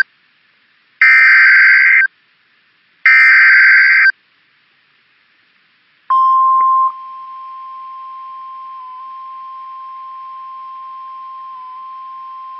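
Emergency Alert System SAME header: the last two of three buzzing digital data bursts, each about a second long and a second apart. About two seconds later comes the steady 1050 Hz National Weather Service warning alarm tone, which drops in level after under a second and holds on. It signals that a severe weather warning is about to be read.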